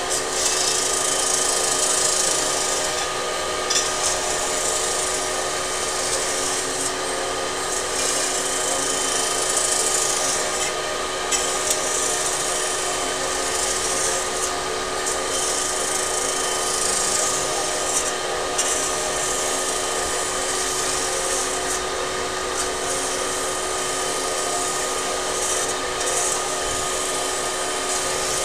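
Metal spinning machine forming an aluminium pot blank: a steady machine hum with fixed tones, and a high hiss of the rollers rubbing the spinning aluminium that swells and eases every few seconds as they make their passes.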